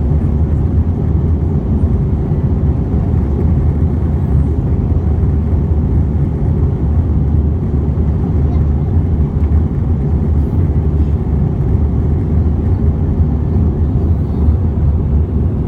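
Airbus A320 cabin noise in the climb after takeoff: a steady low drone of the engines and airflow, heard from inside the passenger cabin.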